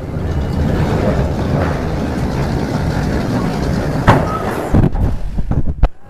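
Incredicoaster steel roller coaster train rumbling along its track on a test run, with a few sharp clacks toward the end.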